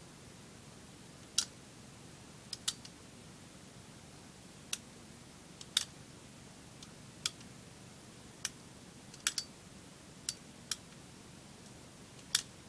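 Sharp clicks from the metal action of a 1911-style gas blowback airsoft pistol being worked by hand while it is test-assembled. About a dozen single clicks come at irregular intervals, a few in quick pairs.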